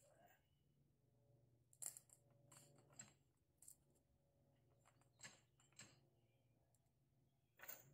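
Faint, scattered metal clicks and knocks from a low-profile floor jack being handled and positioned under the car, over a steady low hum.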